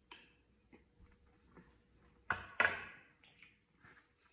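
Quiet eating sounds: a man chewing a mouthful of stew, with small mouth clicks and two short, louder noises close together about two and a half seconds in.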